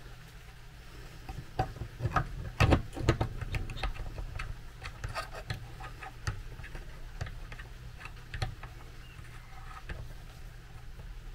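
Irregular small metallic clicks and knocks as a greased armature shaft is worked down into a VW Beetle wiper motor housing and the brushes are coaxed back into place, with a cluster of louder knocks about two seconds in.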